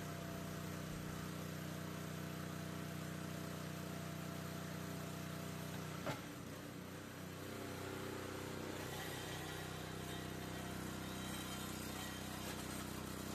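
Small gasoline engine of a Wallenstein log splitter running steadily at idle, with a single click about six seconds in.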